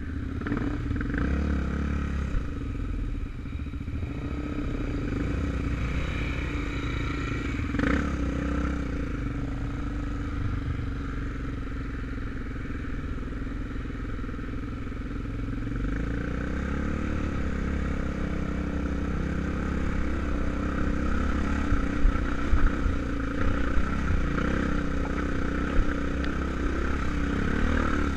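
Enduro dirt bike engine running as the bike is ridden over a rough dirt track, the throttle opening and closing. Several sharp knocks and clatters come over the engine in the last several seconds.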